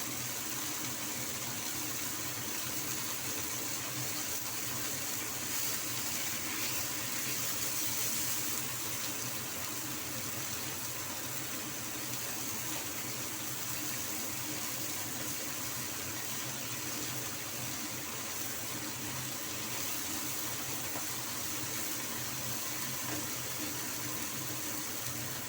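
Fish-paste-stuffed peppers cooking in a pan on the stove: a steady hiss that holds even throughout, with a faint low hum underneath.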